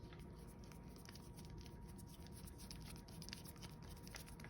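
Faint, irregular small clicks and scrapes of a screwdriver turning a small screw to tighten the cover on a refillable CO2 cartridge.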